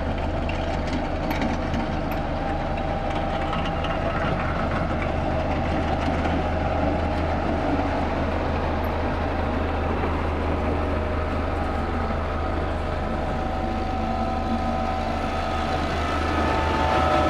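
Diesel engines of Caterpillar single-drum road rollers running steadily as the machines drive over the road base, with a deep, even hum underneath.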